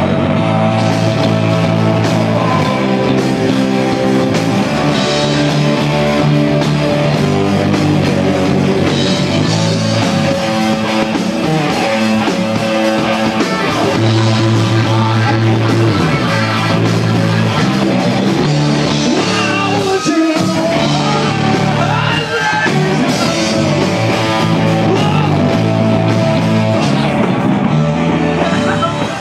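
Live rock band playing loudly, with electric guitar, bass guitar and a singer's vocals over a steady beat.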